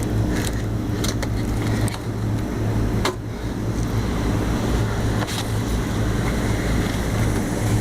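Rooftop air-conditioning equipment running with a steady mechanical hum. A few short knocks and rustles come through it as the air filters are handled and pushed into the unit.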